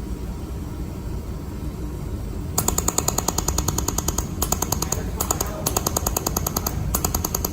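Pulsed laser mold welding machine firing, a rapid even train of sharp clicks at about ten a second, starting about two and a half seconds in and broken by a few short pauses. Under it runs a steady low hum.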